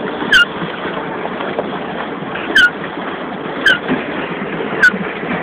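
A short squeak with a click, falling in pitch and repeating about once a second with each stroke of a small pleasure boat's drive, over a steady hiss of wind and water.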